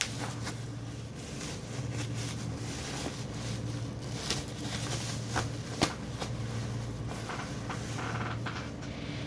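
Packing material, newspaper and bubble wrap, rustling and crinkling in irregular short clicks and crackles while being pulled off a package, over a steady low hum.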